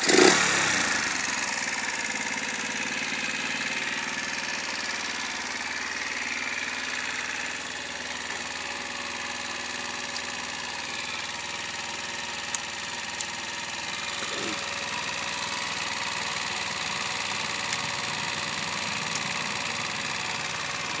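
Sachs MadAss motorcycle engine, just started, gives a brief rev at the very start and then settles into a steady idle.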